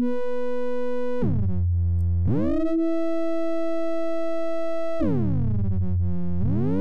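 Drambo software synthesizer holding notes on two oscillators that each glide to a new pitch at a different rate, so they slide out of tune with each other and then settle back into tune, beating as they go. The pitch slides down about a second in, up at about two seconds, down again at about five seconds and up near the end.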